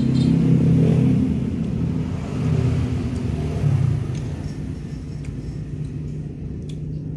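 A motor vehicle engine running close by, loudest over the first four seconds and then settling to a steady low hum.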